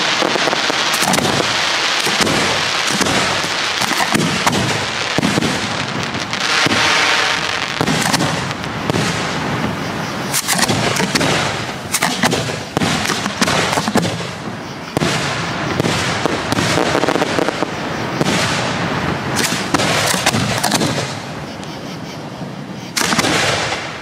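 Aerial firework shells launching and bursting in quick succession: a dense, almost unbroken run of booms and crackle. It eases off briefly near the end, then another loud burst follows.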